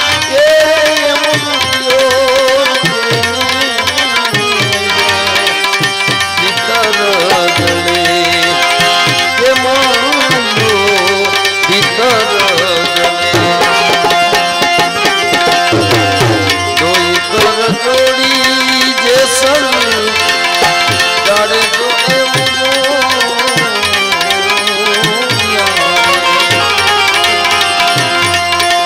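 Live Indian devotional bhajan music: a hand drum keeps a steady beat under a wavering, sliding melody line.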